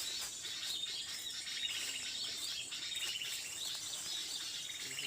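Small forest birds chirping in short, repeated trills about once a second, over a steady high-pitched insect drone.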